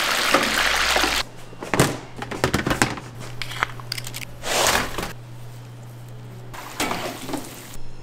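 Commercial kitchen sounds in quick succession: hot oil hissing in a deep fryer, then a run of sharp clicks and knocks from metal utensils, and short scraping noises. A steady low hum runs underneath.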